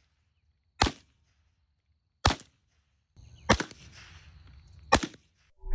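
Four shots from a BinTac S45 .45-calibre semi-automatic big-bore air rifle, each a sharp crack that sounds like a real firearm, spaced about one and a half seconds apart.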